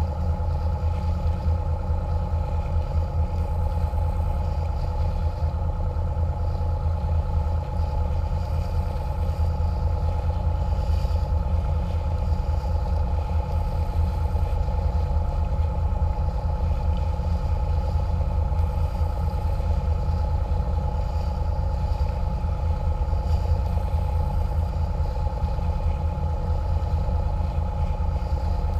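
Engine of a small catamaran cruiser running steadily under way: a constant low drone with a steady higher whine over it.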